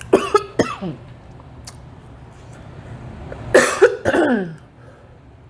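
A woman coughing: a quick run of two or three coughs right at the start, then another run of coughs about three and a half seconds in.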